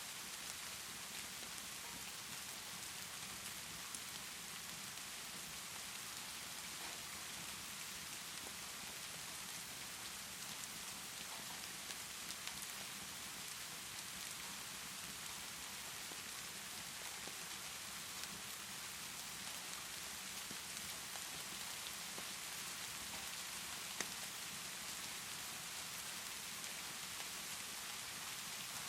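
Steady rainfall hissing evenly, with a few faint sharp pops from a crackling fireplace, the clearest a little before the end.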